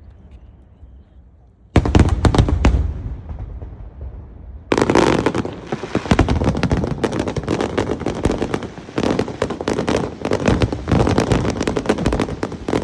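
Aerial fireworks display: after a short lull, a loud burst about two seconds in with crackling that fades, then about five seconds in a dense barrage of bangs and crackling that keeps going.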